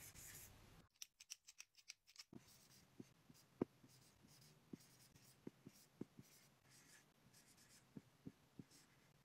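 Chisel-tip markers writing on a whiteboard: faint scratchy strokes of the felt tip with small ticks as it lifts and lands, broken by a brief silent gap about a second in.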